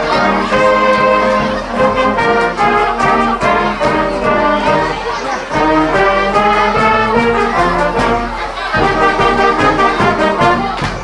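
Wind band of brass and saxophones playing a tune live, in sustained chords.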